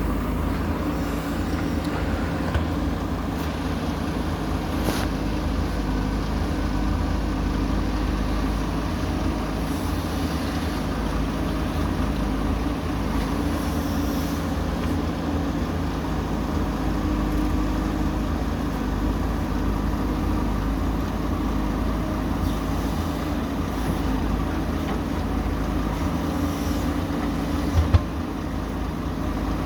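Diesel engine of a JCB 3DX backhoe loader running steadily as it digs and loads mud into a dump truck, with one sharp knock near the end.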